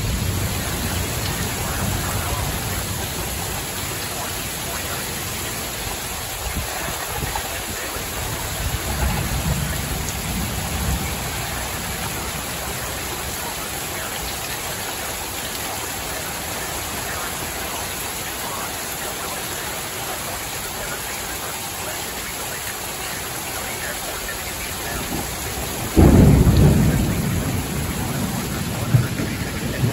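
Heavy thunderstorm rain pouring steadily, with low rumbles of thunder. A sudden loud thunderclap comes about 26 seconds in and rolls away over a couple of seconds.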